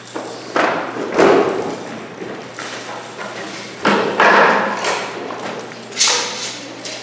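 A series of thuds and knocks, five or so sudden hits a second or more apart, each dying away over about half a second.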